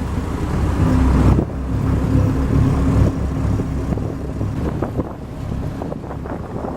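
Fishing boat's engine running steadily, a low rumble with a steady hum, with wind buffeting the microphone.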